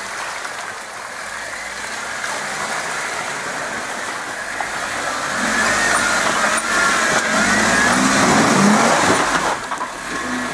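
Jeep Wrangler's engine revving as it drives through a mud hole, getting louder from about halfway through and peaking near the end before easing off.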